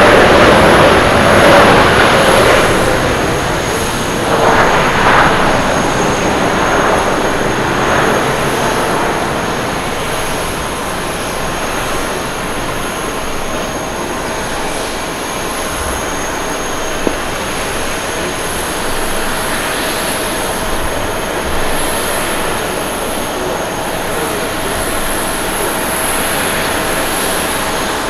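Japan Airlines Boeing 777-200ER's twin jet engines winding down from reverse thrust on the landing roll. The loud rush falls away over the first several seconds with a falling tone, then the engines idle with a steady whine as the airliner rolls out.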